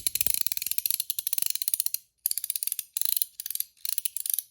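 YEDC Pei pig mechanical fidget coin being worked by hand: fast runs of crisp, snappy clicks, broken by short pauses about two seconds in and a little before four seconds.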